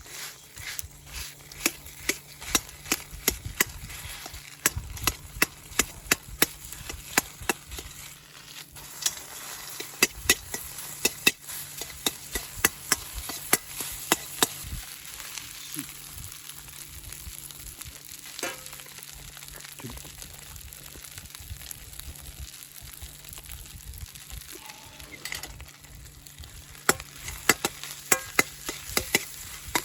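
Food sizzling in a wok over a wood fire, with frequent sharp clicks and taps, thick for the first half, thinning out in the middle, and coming back near the end.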